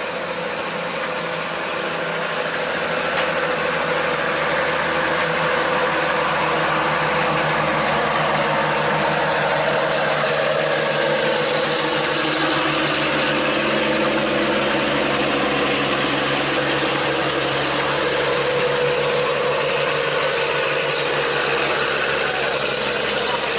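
Loaded diesel truck's engine labouring slowly uphill, getting louder over the first few seconds as it draws close and then running steadily as it passes.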